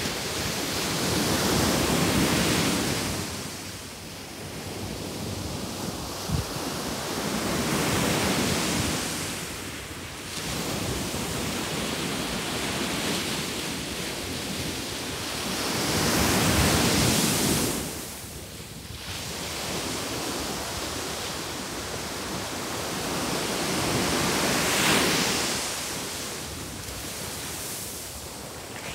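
Ocean surf breaking and washing up the beach, swelling and fading in about four surges several seconds apart.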